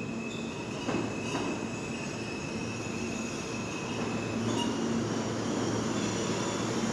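New York City subway train approaching the station, its wheels giving a thin, high, steady squeal for the first few seconds over a rumble that grows slowly louder.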